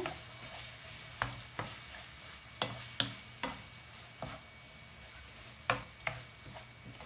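A utensil stirring chicken, onion and mushrooms in a frying pan, with irregular scrapes and knocks against the pan over a steady faint sizzle of the food frying.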